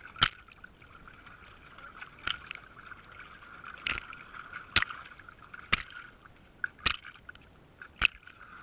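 Water splashing against a GoPro camera's waterproof housing, in sharp, irregular slaps about once a second or so.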